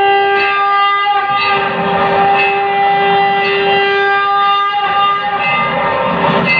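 Conch shell blown in one long steady blast at a single held pitch, cutting off about three quarters of the way through, over a loud ringing background of the aarti's bells and music.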